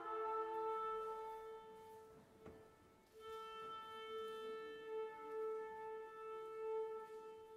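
Violins holding one long note near the A above middle C. The note breaks off briefly about two and a half seconds in, then is held again.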